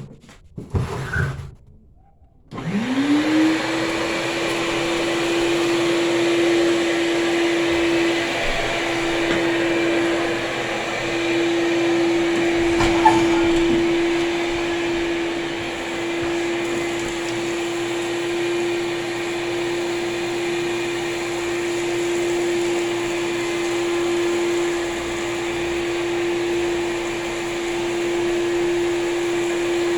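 Vacuum cleaner switched on about two and a half seconds in, its motor whine climbing quickly to a steady pitch over the rush of air, then running steadily. A few knocks come before it starts.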